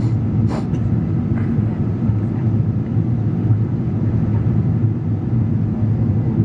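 Steady cabin rumble of a Boeing 777-200ER in cruise-level flight, heard from a window seat over the wing: GE90 engine and airflow noise, low and unbroken. A couple of faint short clicks come about half a second in.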